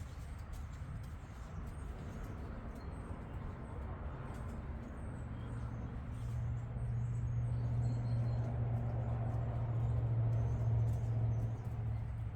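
A low engine hum, like a motor vehicle running nearby, that comes in about halfway through, grows louder, then eases slightly near the end, over a low rumbling background.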